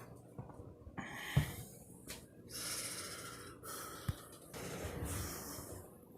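A man breathing heavily: three long, noisy breaths, with a soft knock about a second and a half in and another a little past the middle.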